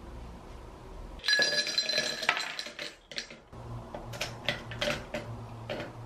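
Ice cubes clinking into a tall empty drinking glass, placed with tongs. About a second in comes a dense run of clinks that sets the glass ringing, then several separate clinks as more cubes go in.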